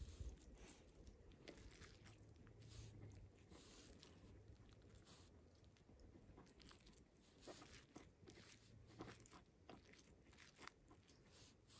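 Faint, soft sticky squelches and small clicks of bare hands pressing and shaping raw minced pork and wrapping it in raw bacon on a wooden board.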